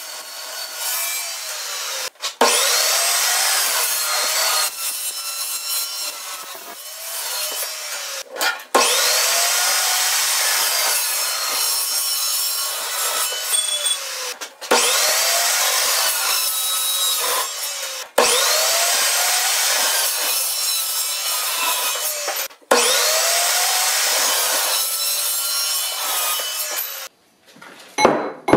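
Evolution Rage2 carbide-blade chop saw cutting through steel tubing and flat strap, about five separate cuts. The motor spins up sharply at the start of each cut and runs a few seconds through the metal, with short breaks between cuts. It stops about a second before the end.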